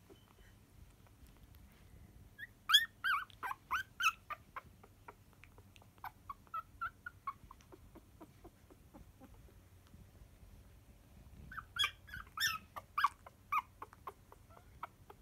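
Newborn poodle puppies squeaking and whimpering in their sleep. Short, high squeaks come in two flurries, a little after two seconds and again about eleven and a half seconds in, with a few fainter ones between.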